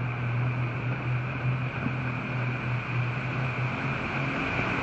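Motorboat engine running steadily under way, a low hum over the rushing churn of its wake.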